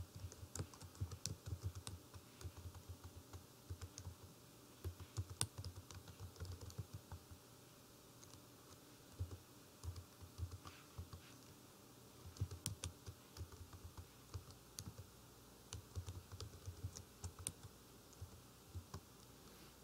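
Faint computer keyboard typing: runs of key clicks with short pauses between them.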